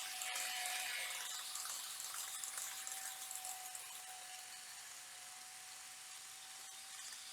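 Model train of an E5 series Shinkansen running on its track: a steady electric motor whine under a hiss of wheels on rail, louder over the first couple of seconds as it passes close, then easing off.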